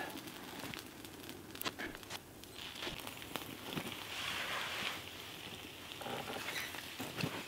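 Faint hiss and crackle of a piece of fish searing directly on hot campfire coals, with a few light clicks as it is handled.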